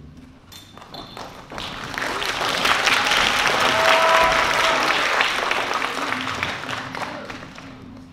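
Audience applauding, building over the first couple of seconds and dying away near the end.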